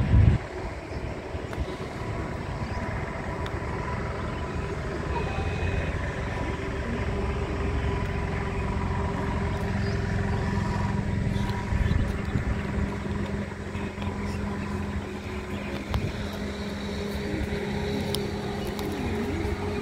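Steady low rumble with a faint steady hum, the sound of road traffic heard from afar, with a few small knocks.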